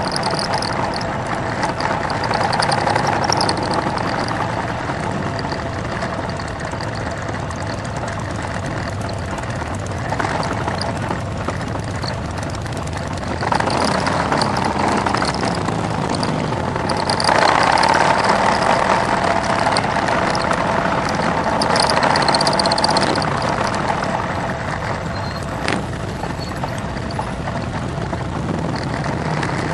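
Engines of a slow-rolling pack of cruiser motorcycles running together, with the riding bike close by. The sound swells louder a few times as engines are throttled, loudest a little past the middle.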